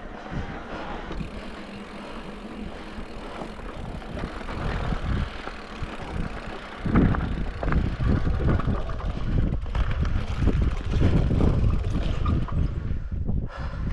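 Wind rumbling on the camera's microphone while a mountain bike's knobby tyres roll over dirt and rock. It gets louder and bumpier about seven seconds in.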